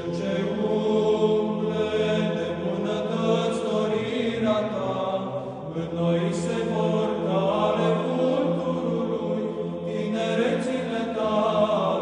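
Orthodox church chant: voices sing a slow, moving melody over a low drone note held without a break.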